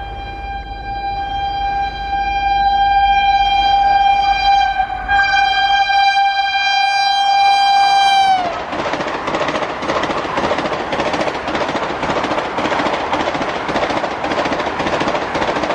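A Vande Bharat Express electric trainset sounds one long steady horn note as it approaches at speed. About eight seconds in, the note's pitch drops sharply as the train passes and the horn stops. The loud rush and clatter of the coaches going by follows.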